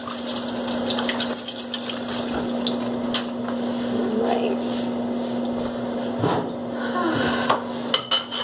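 Kitchen faucet running into a sink while hands are washed, a steady rush of water with a low hum under it. A few short knocks and clatters come through it.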